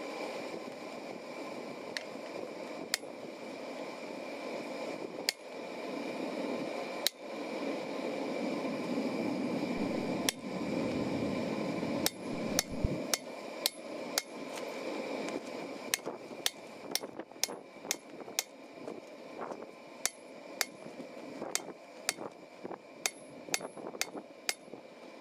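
Blacksmith's hand hammer striking steel on an anvil while forging: a few spaced blows at first, then steady hammering at about two blows a second from about halfway on.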